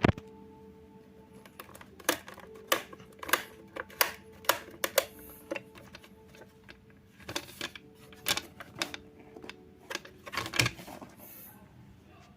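A Sanyo EF-A56C ceiling fan's motor humming steadily, with a string of irregular sharp clicks and knocks over it.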